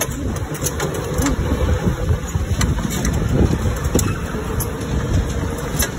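Go-kart being driven on an indoor track: a steady low rumble from the moving kart, with scattered clicks and knocks throughout.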